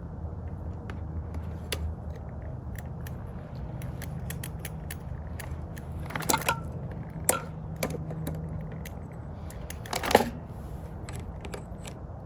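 Metal parts and tools being handled while a rear e-bike wheel is fitted back into the frame: scattered light clicks and a few sharper metallic clinks, the loudest about ten seconds in, over a steady low hum.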